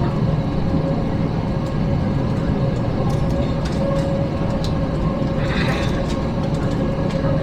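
Steady low rumble inside an Airbus A321 cabin while the jet taxis after landing, with its engines at idle and a steady whine. There are a few faint clicks.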